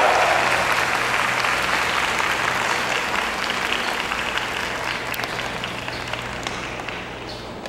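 Stadium crowd applauding, the clapping slowly dying away.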